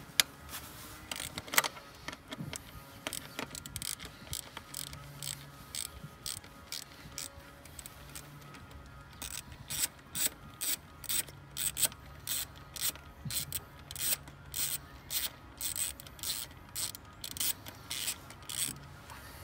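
Hand ratchet wrench clicking as it loosens a bolt: a few sharp clicks at first, then a steady run of clicks at about two to three a second from about halfway through.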